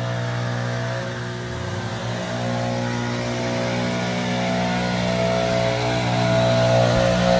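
Gas string trimmer (weed eater) engine running steadily at working speed, dipping briefly in speed about a second and a half in, then picking back up.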